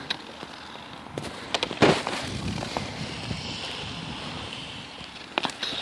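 Ice skate blades hissing and scraping over outdoor pond ice, with a few sharp clicks, and wind on the microphone.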